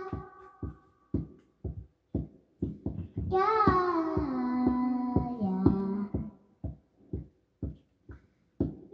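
A child singing one phrase that steps down in pitch, over a steady percussive beat of short knocks about two a second; the knocks carry on alone before and after the sung line.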